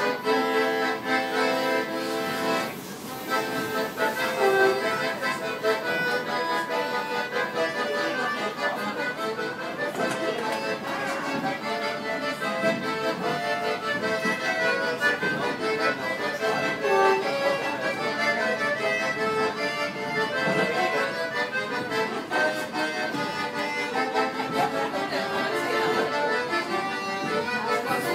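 Accordion played live by a busker, a tune with melody and chords that runs on without a break apart from a brief lull about three seconds in.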